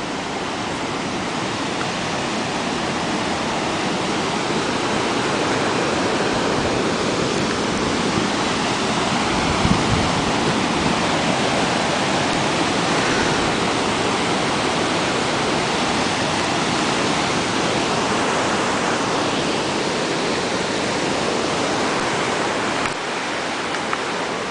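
Ocean surf breaking: a steady wash of waves that swells slowly over the first several seconds, with a brief low thump about ten seconds in.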